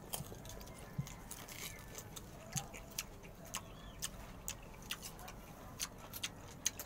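Chewing of firm mango slices close to the microphone: irregular small crunches and wet mouth clicks.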